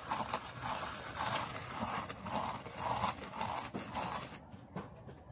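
Potter's wheel turning under a large clay pot as the potter smooths and trims its rim with hands and a wooden tool, with a soft rhythmic beat about twice a second. The hiss drops away near the end.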